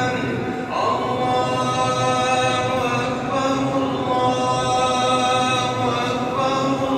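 Islamic devotional chanting in Arabic in a mosque, sung voices holding long notes that shift slowly in pitch.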